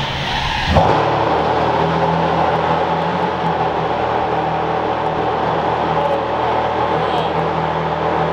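Supercar engine running at a loud, steady idle in a concrete garage, after a sharp surge about a second in.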